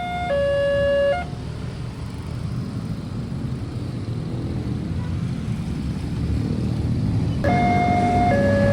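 Railway level-crossing warning alarm sounding an electronic two-tone signal, alternating high and low with each tone held under a second. It stops about a second in and starts again near the end. In between there is a steady low rumble of vehicles.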